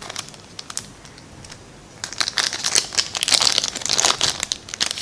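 Small clear plastic bag crinkling as fingers pinch it and pull it open: a few sharp crackles at first, then a dense burst of crinkling from about two seconds in that stops abruptly at the end.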